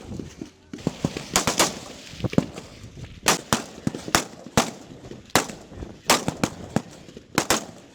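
Rifles firing single shots at an irregular pace, about a dozen sharp cracks, some coming in quick pairs from several shooters at once.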